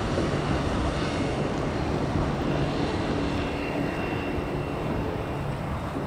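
Small motorboat's engine running steadily as the boat speeds across the river, over strong wind buffeting the microphone. The engine hum comes through most clearly about halfway in.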